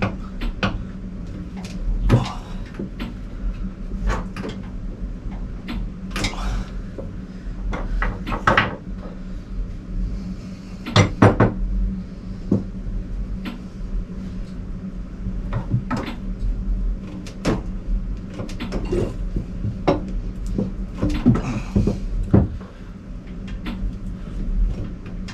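Irregular metal knocks and clunks from the pistons being pushed up by hand in the bare cylinder block of a Ford Lehman diesel, head removed, with a sharp cluster about eleven seconds in. A steady low hum runs underneath.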